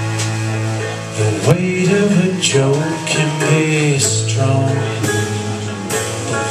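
A band playing live, with guitar and a sung melody.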